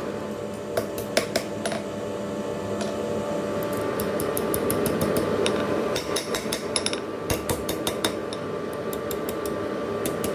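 Hand hammer striking red-hot steel on an anvil as the bar is bent into a loop. Irregular groups of sharp metallic strikes come about a second in and again from about six seconds on, over a steady hum.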